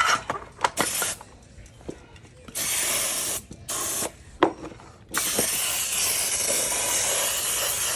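Aerosol brake cleaner spraying in three bursts, the last about three seconds long, to flush dirt out of a small engine's interior. A few light clicks and knocks come in the first second.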